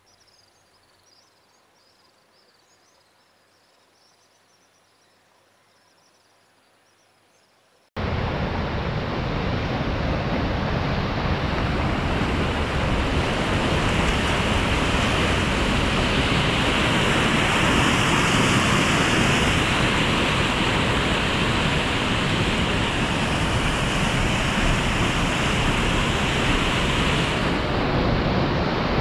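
Faint high chirring for the first several seconds, then, about eight seconds in, a sudden cut to loud, steady rushing water: irrigation canal water churning white as it pours out through the sluice gates under a concrete bridge.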